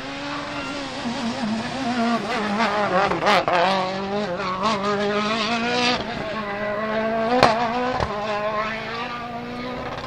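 Citroën DS3 WRC rally car's 1.6-litre turbocharged four-cylinder engine driven hard, its revs rising and falling through corners, with a few sharp bangs from the anti-lag system, the loudest about seven and a half seconds in.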